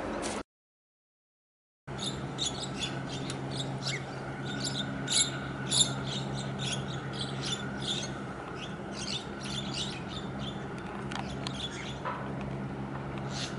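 Small birds chirping rapidly and irregularly over the steady low hum of ship engines from the bulk carrier and its tug. The sound drops out completely for over a second near the start.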